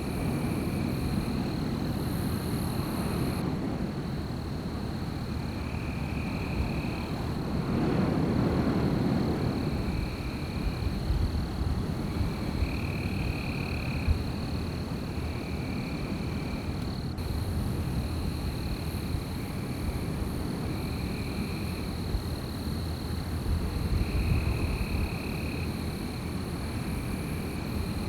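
Wind gusting through trees, swelling about eight seconds in and again near the end, over a steady high trill of night insects and short animal calls repeating every few seconds.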